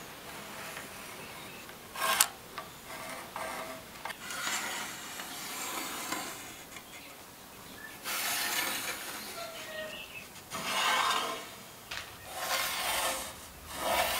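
Pencil scratching along a hackberry bow stave as layout lines are drawn against a metal straightedge, in several strokes of a second or two each. A sharp tap about two seconds in is the loudest sound.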